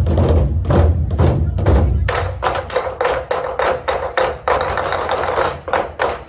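Korean Goguryeo drum ensemble playing a fast rhythm: deep drum booms for the first two seconds, then mostly sharp, dry stick strikes over a steady held note.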